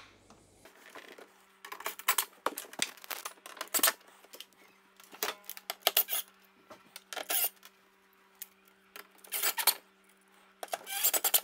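Cordless impact driver run in about six short bursts, driving long Torx screws into pilot holes in a wooden door panel.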